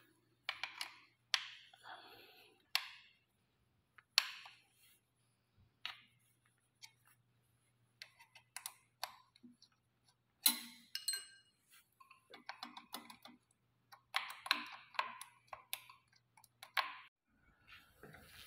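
Irregular clicks, taps and knocks from hands and tools working on a bicycle's brake, with short handling rustles in between. A faint steady low hum runs underneath and stops near the end.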